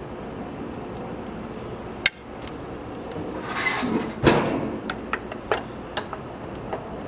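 Stainless-steel gas grill lid swung shut: a short scrape as it comes down, then a heavy clanking thump about four seconds in, followed by several small clicks and taps. A single sharp click comes about two seconds in, before the lid moves.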